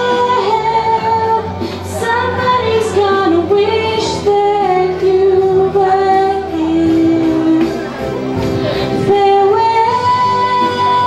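A slow farewell ballad with a female voice singing a held, gliding melody over instrumental backing.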